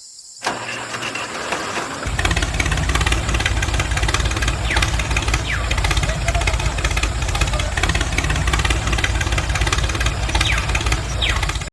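An engine-like motor sound starts about two seconds in and runs steadily with a fast low pulsing, then cuts off abruptly.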